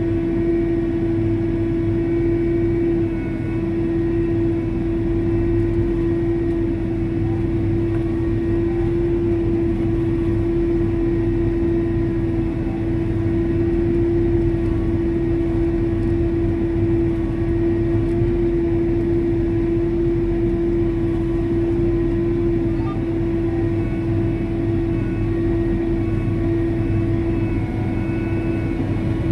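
Tractor engine running steadily as it pulls a field sprayer, heard from inside the cab: a constant drone with one strong steady hum.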